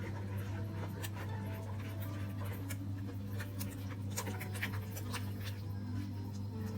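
Soft background music with a steady low hum, over a string of small clicks and scratches from objects being handled.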